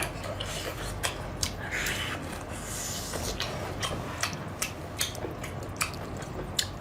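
Close-miked eating sounds: food being chewed, with a run of short sharp clicks about two or three a second and brief wet smacking noises.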